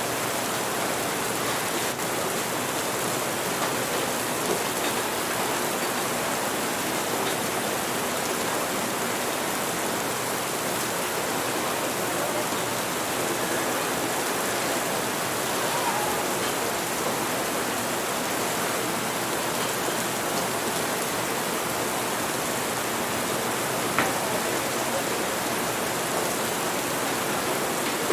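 Steady, even rain, with a few faint brief clicks over it, the clearest near the end.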